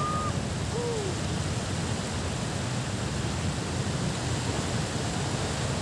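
Steady outdoor beach noise: wind rushing over the microphone, with low gusting rumble, mixed with the wash of distant surf. A few faint, short calls sound in the first second.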